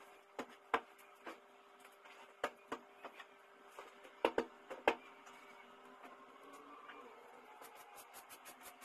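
Scattered sharp knocks and taps of cushions and household items being handled and set down, several close together about four seconds in. From about seven seconds in, faint continuous rubbing and scuffling as sofa cushions are straightened.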